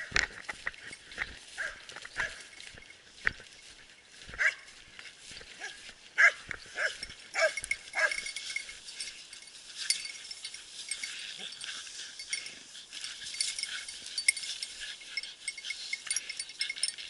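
Small hunting dogs barking and yapping in short repeated calls as they worry a shot wild boar.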